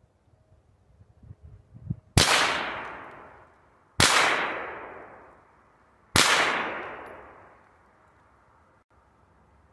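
Three single shots from a pistol-caliber sub-gun, about two seconds apart, each echoing and fading over about two seconds. A few faint clicks come just before the first shot.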